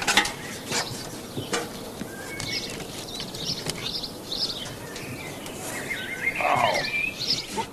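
Small songbirds chirping with short, repeated calls, with a few knocks and clatters of objects being handled near the start.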